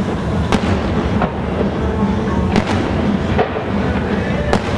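Aerial fireworks shells bursting: about five sharp bangs, a second or so apart, some louder than others, over steady background music.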